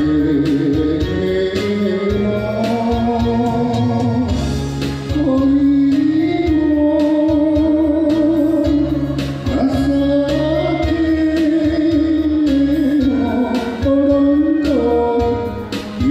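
A song: a singer holds long notes with a wide vibrato, sliding between pitches, over a band accompaniment with a steady bass line, in the style of a Japanese enka ballad.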